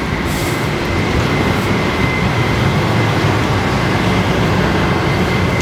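Steady outdoor street ambience: a low rumble with a faint, steady high whine above it.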